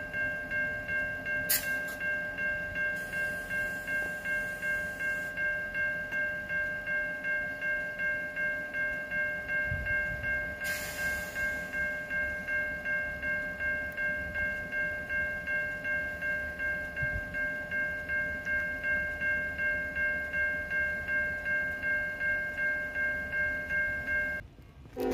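Low-pitched Siemens electronic crossing bell on an active railroad crossing signal, ringing in an even, quick repeat of about two to three strokes a second. It cuts off near the end.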